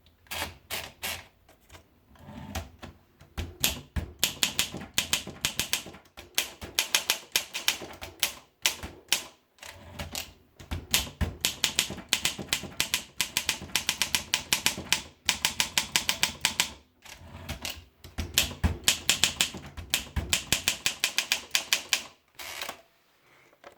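Olympia SM2 manual portable typewriter being typed on: quick runs of key strikes, broken by short pauses every few seconds.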